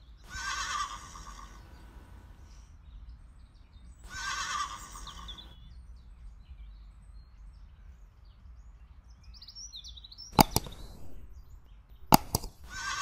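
A horse whinnying, a sound effect: three short whinnies, near the start, about four seconds in and again at the end. Two pairs of sharp mouse-click sounds come between the last two whinnies.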